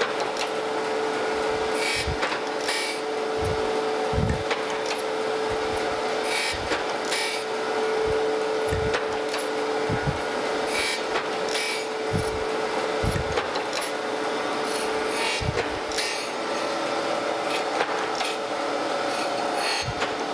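Landis surface grinder's abrasive wheel grinding rough straight edge castings: a steady motor hum under a hiss that swells in bursts as the reciprocating table carries the castings back and forth under the wheel, with short low thumps every second or two. This is a roughing pass, a five-thousandths downfeed, to clean up the rough cast surface.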